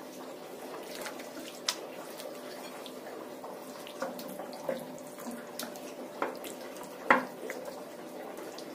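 Hands squishing a thick yogurt-and-spice marinade into chicken pieces in a ceramic bowl: soft wet squelching with a few sharper clicks, the loudest about seven seconds in.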